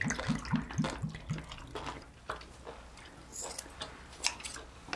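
Liquor glugging out of a green glass soju bottle into a small glass, about four quick rising gulps a second for the first second and a half. Then faint chewing and small clicks of chopsticks and dishes.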